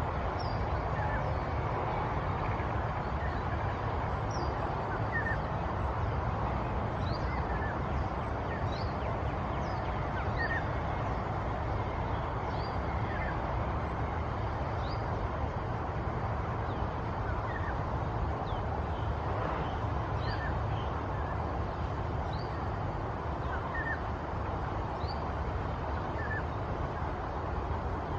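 Outdoor background of scattered short, high bird chirps, each a quick falling note, over a steady low rumble, with a thin, constant high insect drone.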